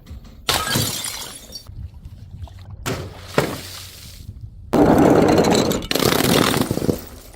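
Glass breaking: a crash about half a second in, two sharp hits around three seconds, then a louder, longer stretch of shattering and crunching glass through the second half.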